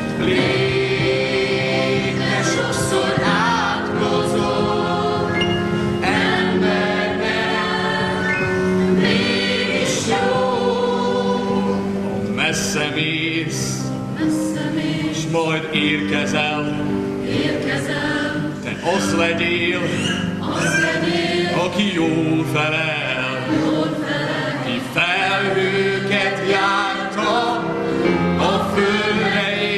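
Choir singing a Hungarian song with piano accompaniment, continuous sustained sung lines.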